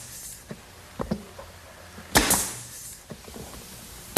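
Pneumatic brad nailer shooting brads into a plywood panel: two sharp shots, each followed by a short hiss, about two seconds in and again right at the end, with light handling clicks between.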